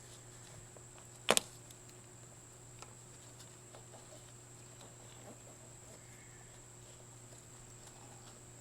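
One sharp click about a second in as an electrical connector on the truck's fuel pump wiring is unlatched, followed by a few faint ticks of handling. A faint steady high-pitched tone and a low hum continue underneath.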